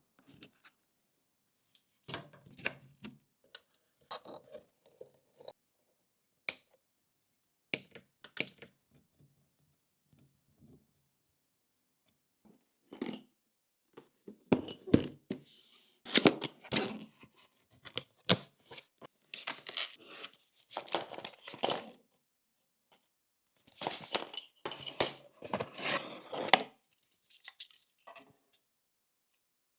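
Hands handling PC parts and packaging: scattered small clicks and clinks, then longer spells of rustling and scraping in the second half.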